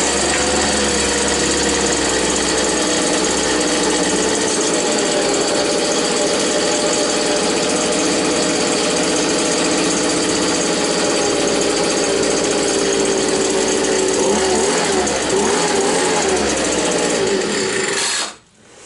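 Small two-stroke engine with a freshly adjusted carburettor, restarted right away and running steadily at high speed; its pitch wavers and sags a little near the end before it cuts off suddenly.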